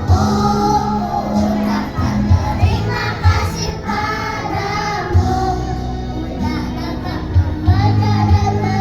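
Young children's choir singing together in unison over recorded musical accompaniment with a steady beat.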